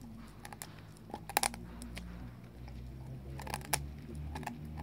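Czechoslovakian wolfdog chewing a meaty bone, its teeth crunching and cracking on the bone in irregular clusters. The loudest cracks come about a second and a half in and again around three and a half seconds.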